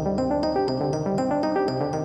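Background music: keyboard-led electronic track with a steady, quick ticking beat.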